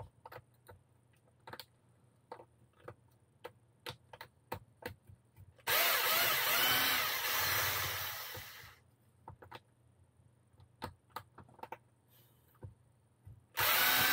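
Cordless electric screwdriver running in two bursts, the first about three seconds long and the second starting near the end, backing screws out of an RC car chassis. Light clicks and taps of small tools and parts come between the bursts.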